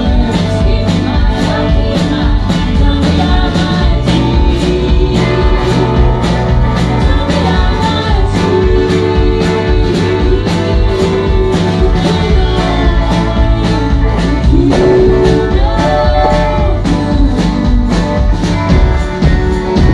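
Live band music: women singing together over electric and acoustic guitars, with a drum kit keeping a steady beat.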